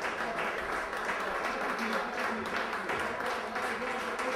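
Audience applauding steadily, with voices calling out among the clapping.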